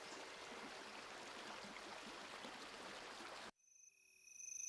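A faint, even background hiss cuts off suddenly about three and a half seconds in. Night insects then fade in as steady, high chirring tones that grow louder toward the end.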